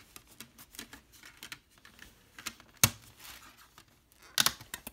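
DVD discs and their plastic case being handled: small clicks and taps, with one sharp click nearly three seconds in and a quick run of clicks near the end.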